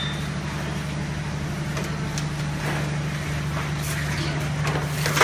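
Industrial tunnel baking oven and its tray conveyor running with a steady low hum, with a few scattered light clicks and knocks and a sharper one at the very end.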